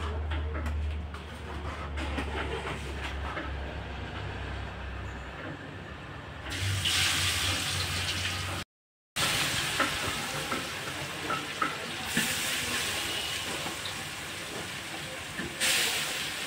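Puris frying in hot oil in a wide pan on a wood-fired stove: a steady sizzle that swells loudly several times, over a low hum for the first few seconds. The sound breaks off for a moment in the middle.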